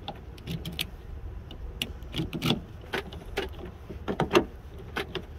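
Scattered small clicks and knocks from a 2012 Toyota Camry's door lock being worked with a freshly cut key, the new key being tried for the first time.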